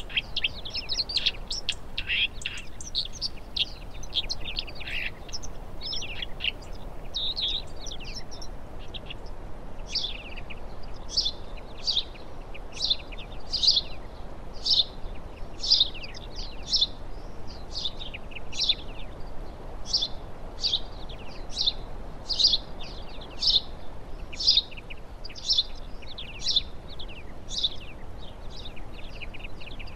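Small songbirds chirping: a jumble of overlapping short high calls, which settles after about ten seconds into one bird's short call repeated a little more than once a second, over a faint steady outdoor background.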